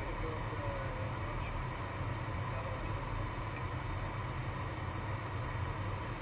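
Steady flight-deck noise of an airliner in flight: an even rush of airflow and engine noise, with a faint steady tone running through it.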